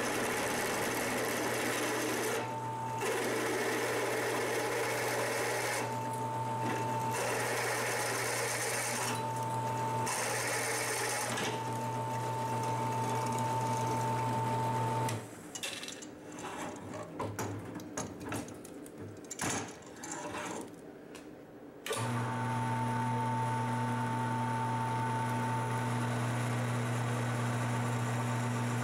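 Drill press running steadily as a half-inch bit bores through mild steel bar, a motor hum with a mid-pitched whine. About halfway through the machine noise stops for several seconds, leaving a few light clinks, then the drill press runs again.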